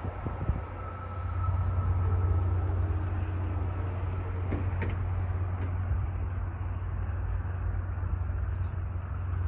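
Full barriers of a railway level crossing rising after a train has passed, over a steady low hum that runs throughout. A few faint bird chirps.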